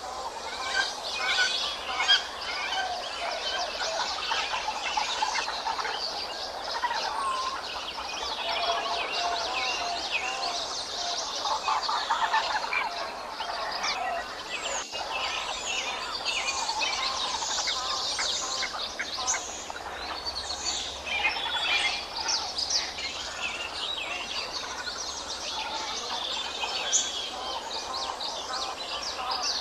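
A dense chorus of many birds chirping and calling at once: overlapping short, quick chirps and small rising and falling whistles, continuous throughout.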